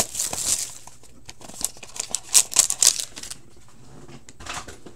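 Crinkling and rustling of the plastic and foil wrapping on a hockey trading card box and pack as it is handled, in short bursts with a lull just before the end.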